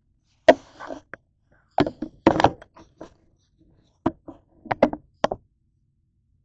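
A series of sharp knocks and thumps, about seven, irregularly spaced, from things being handled and bumped on a kitchen counter: the camera being moved and a pot being lifted.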